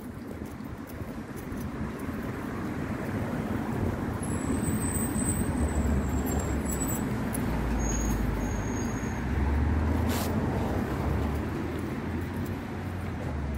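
Road traffic going by, building to a peak about ten seconds in as a heavy vehicle with a low engine rumble passes, then easing off. There are a few brief high squeaks in the middle.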